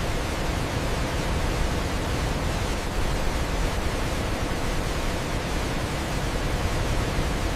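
Waterfall: water falling and crashing in a steady, dense rush with a deep low rumble.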